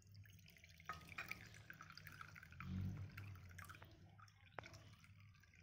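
Onion, lemon and honey cough syrup being poured through a strainer into a bowl: faint trickling with small drips.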